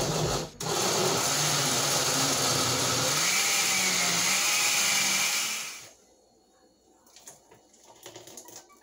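Countertop blender with a glass jar blending thick sweet potato pudding mixture: a short start, a brief stop, then a steady run whose motor pitch rises a little midway, switched off about six seconds in. Faint knocks follow near the end as the jar is handled.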